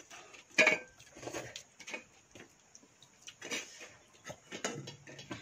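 Two people eating watered rice (pakhala) by hand from steel bowls: irregular small clicks, scrapes and wet mouth sounds as fingers mix and scoop the rice, with one sharper click about half a second in.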